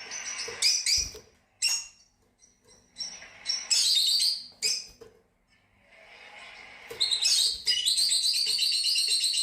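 Fischer's lovebirds chirping: a scatter of short, high chirps, then a long, rapid twittering chatter in the second half.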